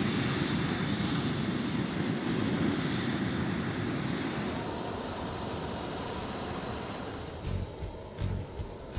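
Hot-air balloon burner firing: a steady rushing blast that thins and fades over the second half, with a few low gusty thumps near the end.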